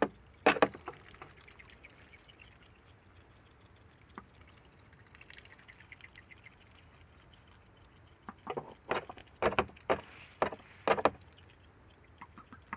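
Ducks dabbling and slurping water with their bills in short splashy bursts: one about half a second in, then a quick run of them from about eight to eleven seconds in.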